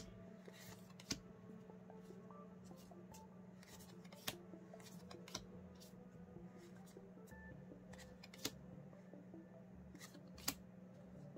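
Trading cards being taken one at a time off a hand-held deck and laid on a pile, giving short sharp card snaps every second or few, over a faint steady low hum.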